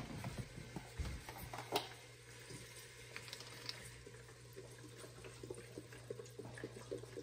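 Chicken broth being poured from a container into a pot of roux, vegetables and meat: a faint, steady trickling splash, with a few light knocks near the start, and a low steady hum underneath.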